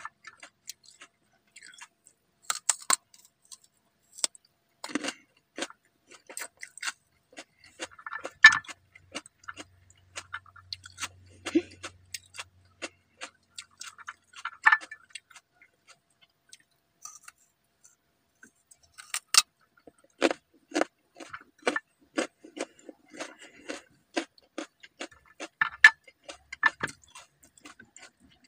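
Long acrylic fingernails tapping and scratching on a raw carrot and cucumber: a run of sharp, irregular clicks and taps, with a quieter stretch just past halfway.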